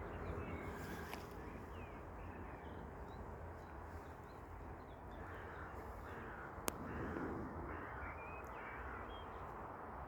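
Faint outdoor ambience with birds calling now and then, including harsher caw-like calls in the middle, and a single sharp click about two-thirds of the way through.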